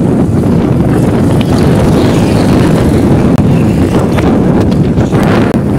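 Motorcycle in motion, a loud steady rush of wind on the microphone mixed with engine and road noise.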